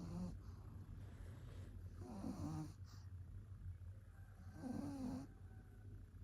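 Pug snoring in its sleep: a faint, pitched snore roughly every two and a half seconds, each lasting under a second.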